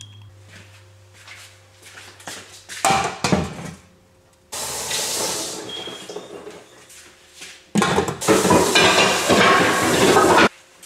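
Kitchen cooking sounds: a few knocks of utensils against pots and pans, then a steady hiss that starts suddenly, grows much louder and cuts off abruptly near the end.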